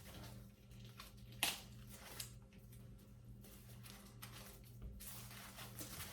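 Faint handling of packaging as it is undone, with one sharp click about a second and a half in and a smaller one shortly after, over a low steady hum.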